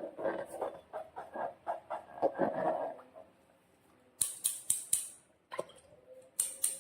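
Slime being squished and worked by hand, a wet crackling squelch for about three seconds; then sharp clicks, four in quick succession about four seconds in, one more shortly after and three near the end.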